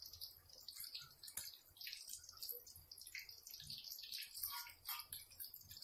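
Sardine and egg fritter shallow-frying in hot oil in a wok: faint, irregular crackling and spitting of the oil.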